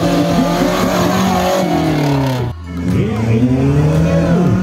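Engines of tubular off-road buggies running hard on a dirt course: the pitch falls as one eases off, a short break just past halfway, then another engine revs up with rising pitch.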